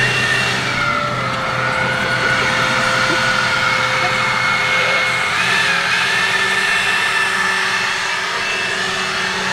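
Leaf blower running steadily at a raised speed, a continuous rushing air noise with a held whine.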